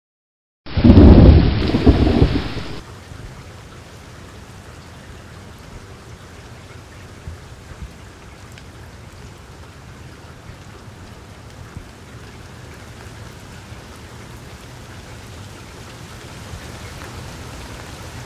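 A loud, deep thunderclap about a second in, lasting a couple of seconds, followed by steady rain falling that swells slightly near the end.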